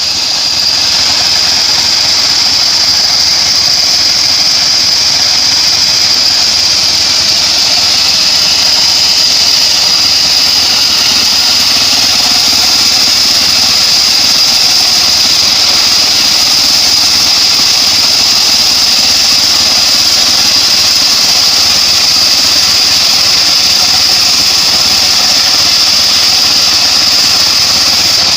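Engine-driven homemade bandsaw sawmill running steadily, with the engine's drone under a constant high-pitched whine.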